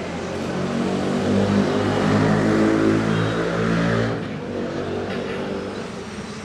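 An engine running, growing louder and then dropping away sharply about four seconds in.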